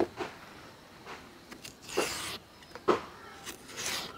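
Knife peeling the skin off a raw green banana: a knock about as it starts, a scrape of about half a second midway, a sharp click, then another scrape near the end.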